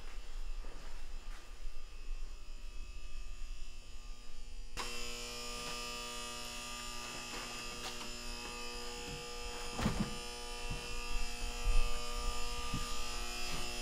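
A steady electrical buzz with several held tones over a low mains hum; about five seconds in it jumps abruptly louder and brighter. A few soft knocks sound over it.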